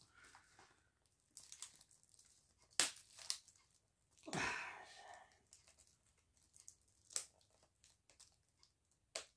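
Plastic wrapping being torn and peeled off a disc case by hand: a series of faint, scattered crinkles and short rips, the sharpest about three seconds in and the longest about a second and a half later.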